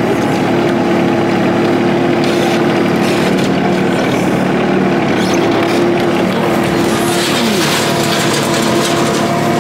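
John Deere 2305 compact tractor's three-cylinder diesel engine running steadily while dragging old appliances, with a brief dip in pitch about seven seconds in.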